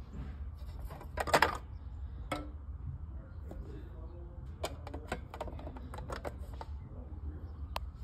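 Non-fused pull-out disconnect box being handled: its black plastic pull-out block is pulled out with a scrape about a second in, then worked back in with a run of sharp plastic clicks and knocks and a last click near the end. A low steady hum runs underneath.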